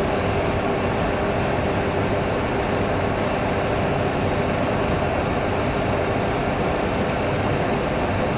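Steady cockpit noise of a Boeing 737 Classic on final approach: a constant rush of engine and airflow sound with a steady low hum underneath, unchanging in level.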